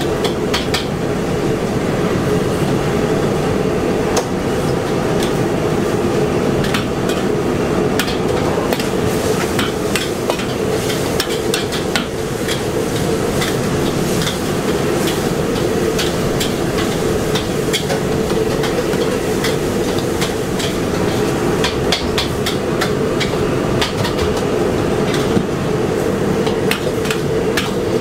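Metal ladle scraping and clanking against a steel wok, with many quick knocks, as noodles are stir-fried, over a steady rushing noise from the wok's gas burner.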